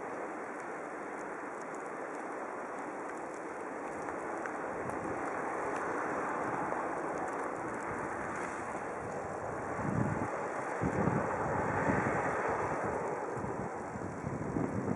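Road traffic on a snow-covered street: a steady hiss of passing cars that swells in the middle. Gusts of wind buffet the microphone about ten seconds in and again near the end.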